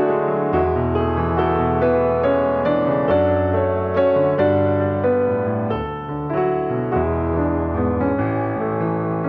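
Background piano music, gentle and slow, with held bass notes under a melody.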